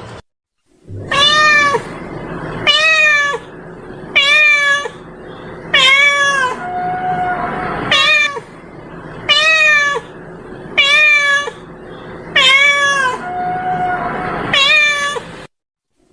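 Domestic cat meowing over and over, a call about every second and a half, with a couple of lower, flatter calls among them: a cat-lure call for attracting cats.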